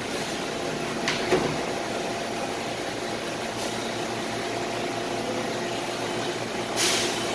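R160 subway train standing at the platform, its air-conditioning and equipment running with a steady hum. Its doors slide shut with two short knocks about a second in, and a short burst of air hiss comes near the end.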